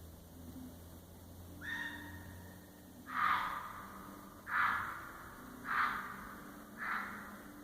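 An unidentified animal calling in the woods: one thinner pitched call, then four louder calls about a second and a quarter apart. The uploader thinks it may be a bobcat but is not sure.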